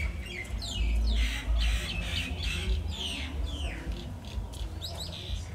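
Many small birds chirping, with quick falling calls several times a second, over a low rumble that is loudest about a second in.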